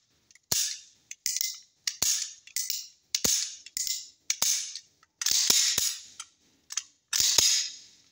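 Sharp metallic clacks and clicks from a 30 bore TT-type pistol being worked by hand, its slide racked and hammer snapping on dry-fire again and again in irregular bunches. This is a function check showing the hammer and trigger working properly after reassembly.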